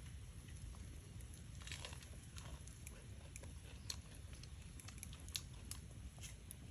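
A person eating: faint chewing with irregular small clicks and crunches, a few a second, the sharpest about four and five and a half seconds in, over a steady low rumble.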